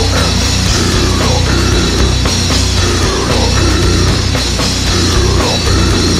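Groove metal band playing loud, with electric guitar, bass guitar and a drum kit.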